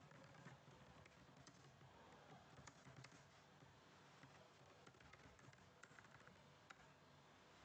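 Faint computer keyboard typing: scattered soft key clicks over near silence.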